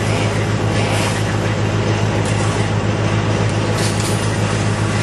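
An engine running steadily at one constant speed: a low, even hum with a hiss over it.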